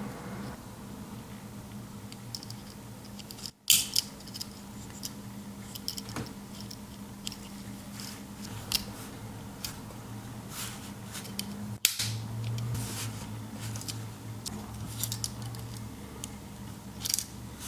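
Scattered light clicks of a Swiss Army knife being handled, its tools clicking open and shut, over a low steady hum.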